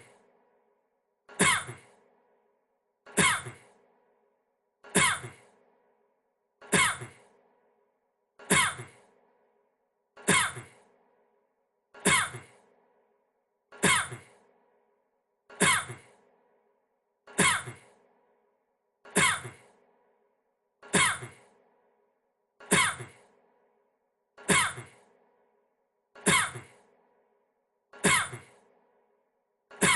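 A man's single short cough, repeated identically about every 1.8 seconds, some sixteen times: one recorded cough looped.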